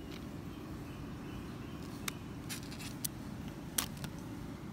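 A steady low rumble with three or four faint, sharp clicks and taps, the sound of plastic toys being handled close to the microphone.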